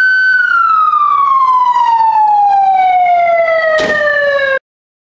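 Ambulance siren giving one long wail: its pitch rises, holds briefly, then slides slowly down before cutting off abruptly near the end. A single thump comes just before the cut-off, as the ambulance's rear door is shut.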